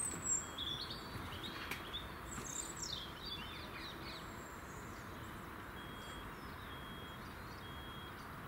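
Outdoor ambience with small birds calling: a quick flurry of chirps in the first few seconds, then three short, even whistled notes about a second apart near the end, over a steady background hiss.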